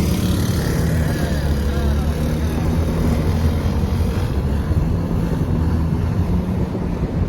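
Steady low drone of engine and road noise heard inside a moving car's cabin.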